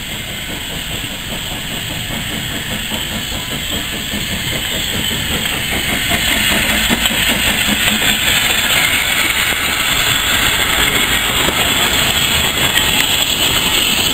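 Small saddle-tank steam locomotive passing close by, hissing steam from its cylinders while its wheels and the open wagons behind it clatter over the rails. It grows louder through the clip, most of all from about halfway as it draws level.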